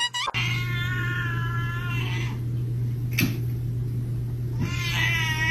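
Domestic cat giving two long, drawn-out meows: one lasting about two seconds near the start, the other beginning near the end. A steady low hum runs underneath, and a sharp click falls between the two meows.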